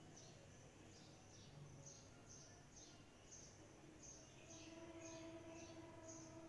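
Near silence with faint bird chirps, each a quick falling note, about two a second, over a faint steady hum.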